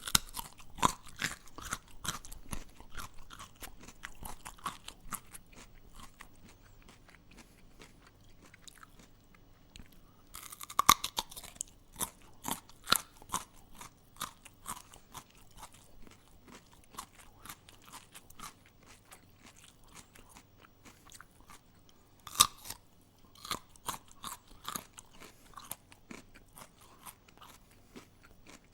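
A person biting and chewing something crunchy, with irregular sharp crunches and crackles; a loud bite about 11 seconds in and another around 22 seconds, with quieter chewing between.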